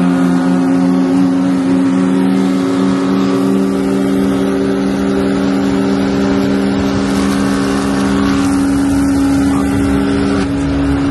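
Side-by-side UTV engines running at steady high revs while driving, two level engine notes held together; the lower note drops away about ten seconds in.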